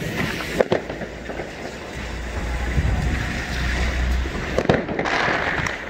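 Wind buffeting the microphone over a steady outdoor rush of noise, with sharp cracks of distant fireworks about half a second in and again about four and a half seconds in.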